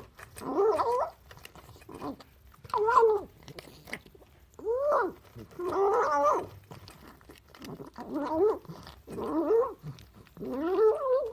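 A hungry cat making loud, short voiced calls while it eats, about seven of them, each rising and falling in pitch, roughly one every second and a half.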